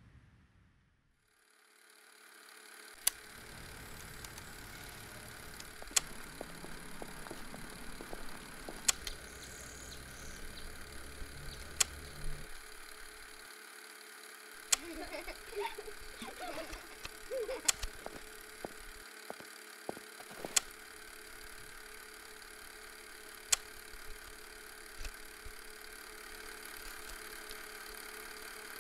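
Old-film style noise: a steady hiss with a faint hum and a sharp click about every three seconds, with a low rumble under the first dozen seconds.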